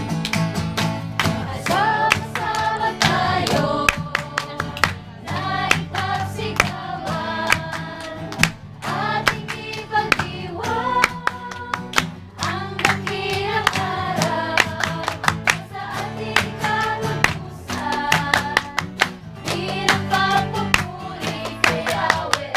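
A group of young people singing a Tagalog praise song together and clapping their hands along to it.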